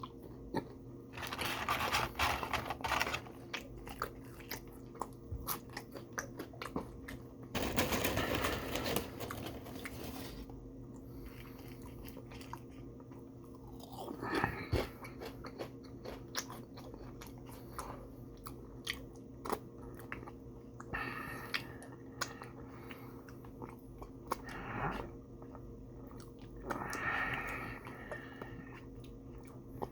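A person chewing and crunching fast food close to the microphone, with wet mouth clicks and several louder crunchy bursts of bites. A steady low hum runs underneath.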